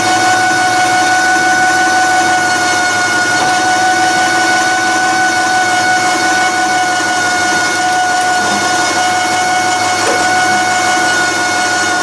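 Reese 1-ton 12-volt electric ball-mount winch running steadily under load, its motor whining at an unchanging pitch as it reels in cable and pulls the full weight of a roughly 500-pound garden tractor up the ramps.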